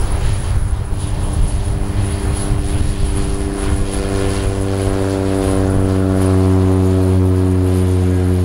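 Cessna 208 Caravan's single PT6A turboprop at takeoff power during the takeoff roll: a loud propeller drone that turns into a steady, even hum from about four seconds in, over a faint high turbine whine.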